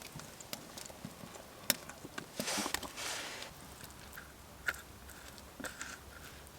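Eating sounds: a few sharp clicks and knocks, with a short scraping rustle about two and a half seconds in, as food is handled and eaten.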